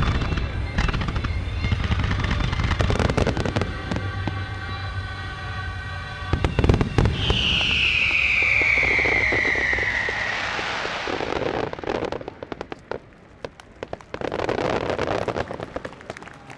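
A fireworks finale: shells bursting in rapid booms and crackles over fading music. Then a long whistle falls in pitch for a few seconds, followed by scattered crackling. Near the end there is a brief swell of crowd noise.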